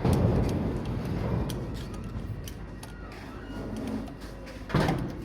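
Workshop clatter from work on an engine teardown: a rough scraping rumble at the start, scattered clicks, and one sharp knock near the end.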